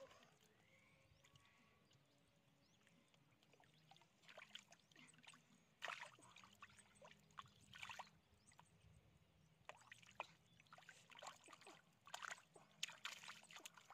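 Faint wet squelches and splashes of hands groping through mud and shallow muddy water, in irregular clusters starting about four seconds in.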